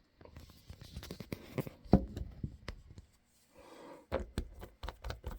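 Handling noise of small plastic dye bottles and craft materials: a run of small clicks and taps with soft rustles, and a slightly heavier knock about two seconds in.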